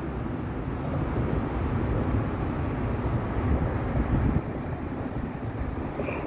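Steady low rumble and hiss of road traffic passing over a bridge.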